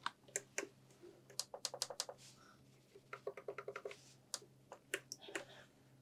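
Typing on a computer keyboard: a quick run of keystrokes about a second in and another around three seconds in, with a few single clicks between, over a faint steady low hum.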